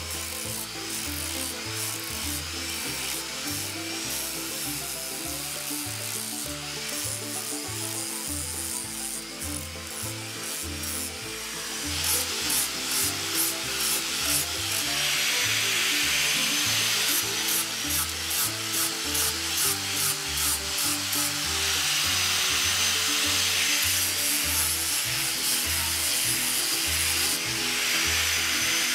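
Electric angle grinder with a flap disc, running at over 3,000 RPM, sanding the bumps off the face of a laminated wooden keel knee: a scratchy rubbing over a thin high motor whine. It gets louder about twelve seconds in and then pulses about four times a second as the disc is worked against the wood.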